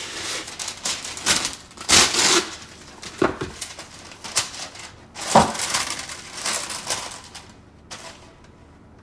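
Parchment paper rustling and crinkling in irregular bursts as it is pulled out and laid down on a baking pan.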